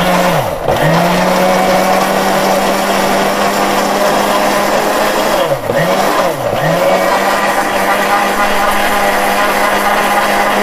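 Miyako electric blender with a plastic jar running at speed, pureeing cucumber chunks and water into juice. The motor hum is steady, with three brief dips in pitch that recover at once: about half a second in and twice around the middle.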